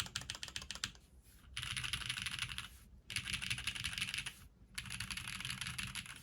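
TGR 910 V2 ME mechanical keyboard with BCP switches (Gateron X bottom housings) on an aluminium plate being typed on. Separate key strokes for about the first second, then three bursts of very fast typing, each about a second long, with short pauses between them.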